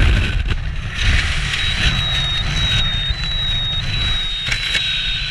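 Wind buffeting the camera microphone under an open parachute canopy: a steady low rumbling rush with hiss. A thin, steady high-pitched tone comes in about one and a half seconds in and holds.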